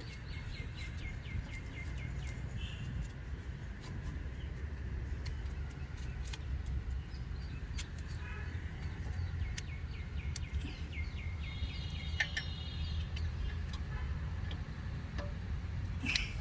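Birds chirping in runs of quick, falling notes over a steady low rumble, with scattered light clicks.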